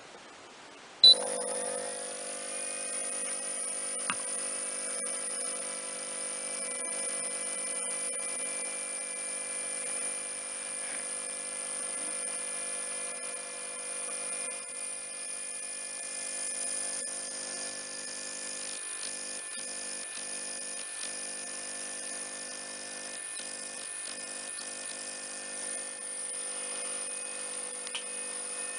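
Airthereal AH1000 ozone generator switched on with a sharp click about a second in, then spinning up with a whine that rises for a second or two and settles into a steady hum with several high tones.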